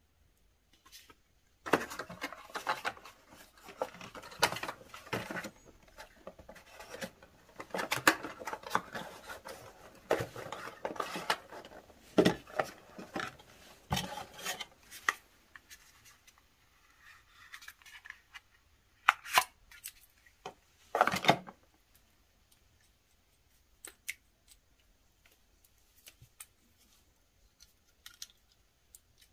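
Paper leaflets and the cardboard inner trays of a tablet box being handled: a long run of rustling, scraping and small taps, then two louder knocks of cardboard, then a few scattered faint ticks.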